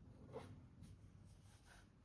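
Very faint strokes of a drawing tool scratching on paper, with a short stroke about a third of a second in and another near the end, over low room hum.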